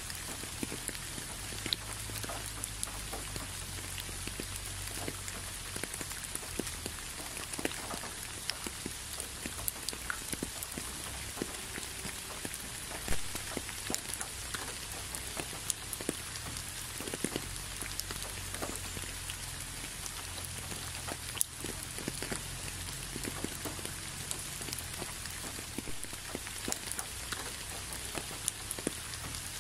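Steady rain, a constant hiss dotted with individual drops ticking close by, one sharper drip about thirteen seconds in. A faint low hum runs underneath.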